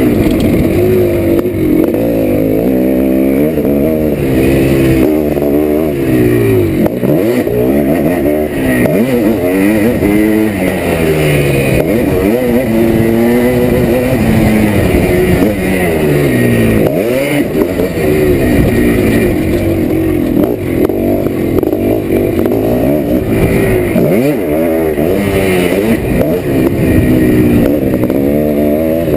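1987 Yamaha YZ490's single-cylinder two-stroke engine, revving up and dropping back again and again as the bike is ridden on dirt, with the pitch climbing and falling every few seconds.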